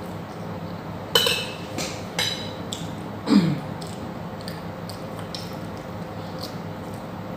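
Mukbang eating sounds: utensils clink against a plate a few times in the first two seconds or so. About three seconds in there is a short falling 'mm' sound, the loudest moment, over a steady low hum.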